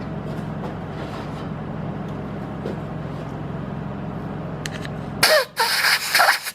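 Milling machine spindle running steadily with an end mill cutting into a hardened broken stud, then stopping about five seconds in. A few loud hissing blasts of compressed air follow near the end, clearing chips from the hole.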